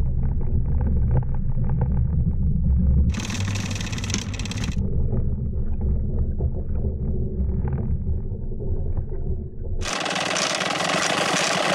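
Muffled low rumble of water rushing past an action camera in its waterproof housing as the anchor it is mounted on sinks toward the seabed. Two stretches of steady, even hiss break in, one about three seconds in and one near the end.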